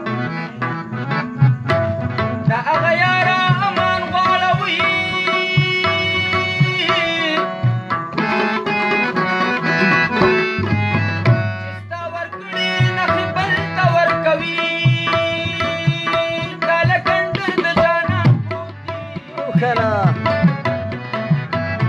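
Live Pashto folk music: a rabab, a plucked lute with sympathetic strings, plays a fast run of notes over steady tabla hand-drum strokes, with held harmonium notes underneath.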